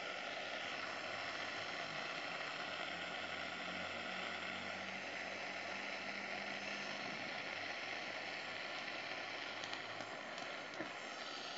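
Steady hiss of hydrogen gas jetting from a brass nozzle and burning with an invisible flame, fed at high pressure from a home-made hydrogen generator.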